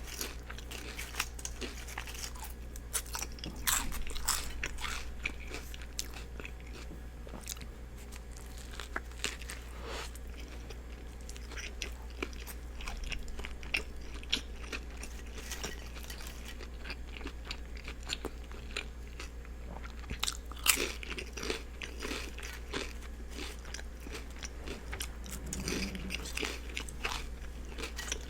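Close-miked eating ASMR: bites and chewing of a turkey and cheese sub with lettuce and onions, with irregular wet crunches and mouth clicks, over a steady low hum.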